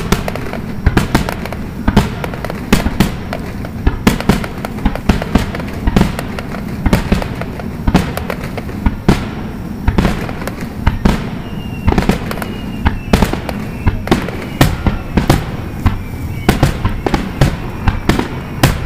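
Aerial fireworks display: shells bursting in quick succession, a dense run of sharp bangs with crackling between them. A few thin, slightly falling tones run through the second half.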